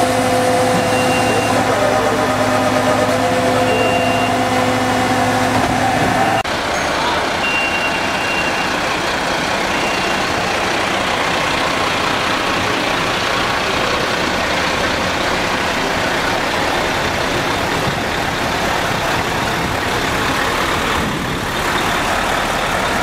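An aerial ladder truck's engine and hydraulics give a steady multi-pitched hum, which cuts off abruptly about six seconds in. After that a Mercedes-Benz fire tanker's diesel engine runs as the truck moves along the street, with a few short high beeps scattered through.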